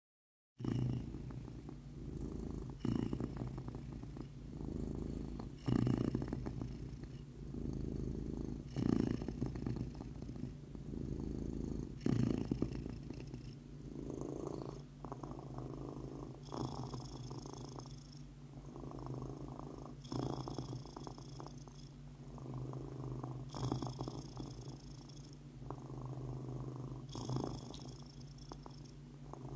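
Cat purring continuously, the purr swelling and easing in slow cycles about every three seconds with its breathing.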